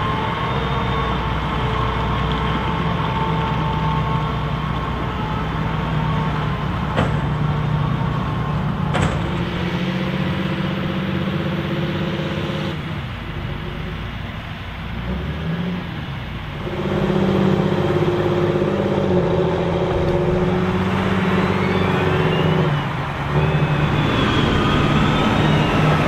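Large John Deere tractors' diesel engines running under heavy load as they pull through deep mud, in a string of short clips, so the steady engine note shifts in pitch every few seconds. Two sharp knocks come a couple of seconds apart.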